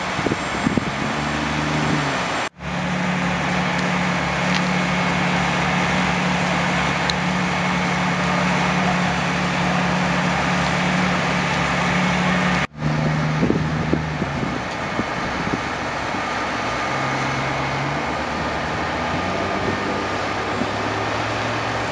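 Parked fire trucks' engines running at idle, a steady low hum under a broad even rumble. The sound cuts out briefly twice.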